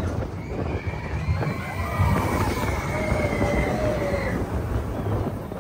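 Riders on a mine-train roller coaster holding long, wavering screams over the steady rumble of the train running along its track.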